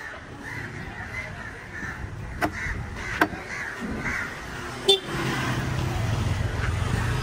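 Market voices and two sharp knocks, then from about five seconds in a motorcycle engine running close by with a steady low hum.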